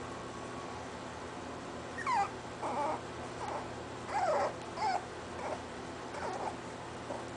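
Scottish terrier puppies, about 25 days old, whimpering and yipping in a string of short, high calls that slide in pitch, starting about two seconds in and loudest around the middle.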